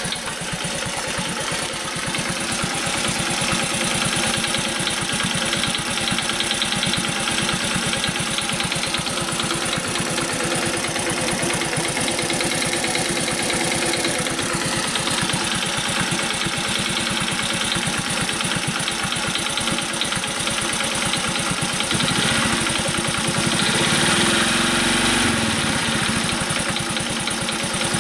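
Honda Super Cub 50's small air-cooled single-cylinder four-stroke engine idling warm with a カチカチ ticking from the valve train, which the owner sets out to cure by adjusting the tappets (valve clearance). Near the end the revs rise briefly and fall back.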